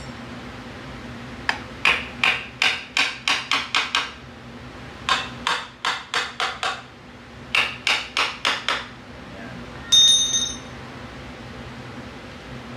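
A hammer tapping on metal in three quick runs of strikes, about three a second. Then, near ten seconds, a single loud metallic clink that rings briefly.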